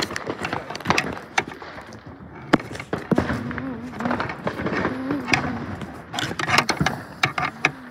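Fireworks going off: a rapid, irregular series of sharp cracks and pops, some louder than others, the loudest about two and a half seconds in.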